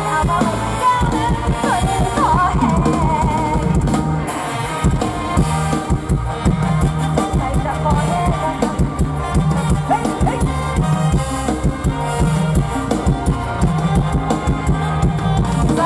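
Live Isan mor lam band music with a woman singing through the PA over a steady drum beat. Her voice is most prominent in the first few seconds and again briefly near the middle.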